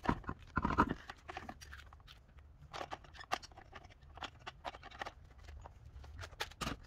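A car wheel being set onto the hub studs, then lug nuts spun on by hand: a scatter of small metallic clicks and knocks, the louder ones about the first second.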